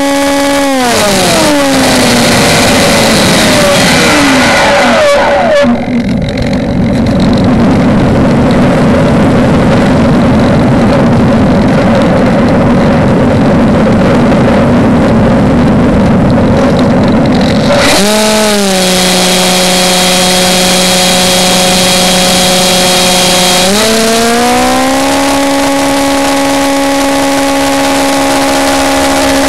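Whine of an RC model aircraft's electric motor and propeller, heard close up from on board. The pitch falls in the first few seconds as the throttle is cut, and a loud rushing noise takes over for about twelve seconds. About 18 s in the whine returns at a lower pitch, then rises back to a steady high whine around 24 s.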